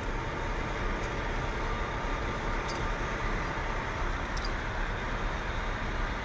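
Steady rumble of an idling diesel semi-truck, with a couple of faint clicks a few seconds in.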